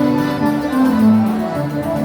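Accordion-led gaúcho dance-band music, an instrumental passage of held chords and melody notes over a moving bass line.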